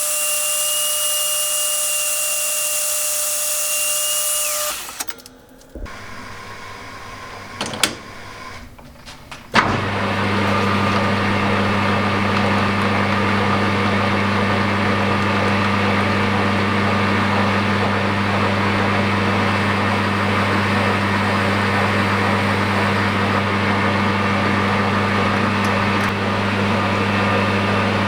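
A high-speed grinder running with a high whine, winding down about five seconds in. After a few quieter seconds with a couple of clicks, an electric motor starts and runs steadily with a deep hum.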